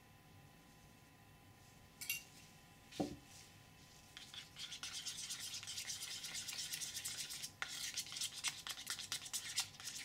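Small plastic spatula stirring and scraping in a small bowl, blending wetted pigment paste into moisturizer: a click and a knock, then from about four seconds in a fast run of scratchy stirring strokes.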